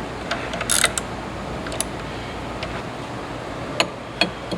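Steady background hiss with a handful of sharp metal clicks and taps as a hand tool is fitted and worked on the cylinder insert of a rotary filling machine, plus one short hissy scrape about a second in.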